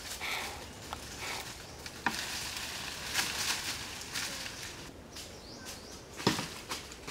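Footsteps rustling and crunching through dry leaf litter and undergrowth, with sharp cracks about two seconds in and again near the end.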